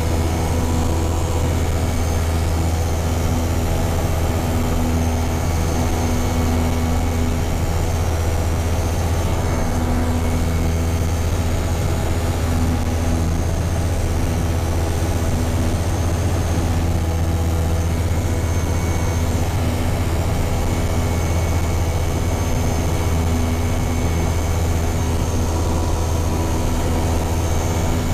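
Hi-Max ultralight aircraft's engine and propeller running steadily in cruise flight: a constant low drone, heard from inside the cockpit.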